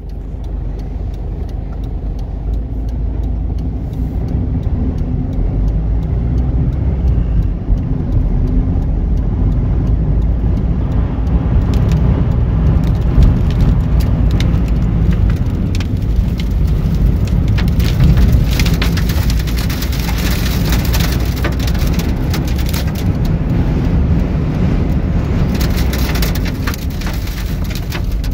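Vehicle driving, heard from inside the cabin: a loud steady low rumble of engine, tyres and wind. From about twelve seconds in, dense sharp ticks and crackles join the rumble, heaviest in the second half.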